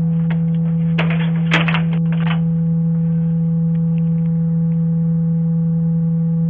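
A loud steady low hum with fainter higher tones above it, broken by a few clicks and crackles about one to two seconds in.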